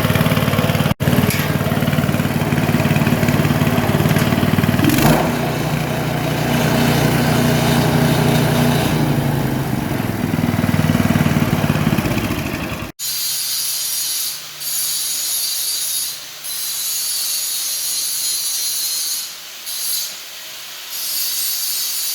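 Small engine of a patchouli leaf-and-twig chopper machine running steadily, with abrupt cuts in the sound about a second in and about thirteen seconds in. After the second cut comes a quieter high hiss that drops away briefly several times.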